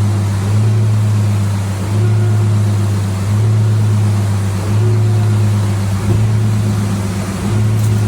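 Engine of construction machinery running steadily with a low hum that swells and dips in a regular cycle about every second and a third.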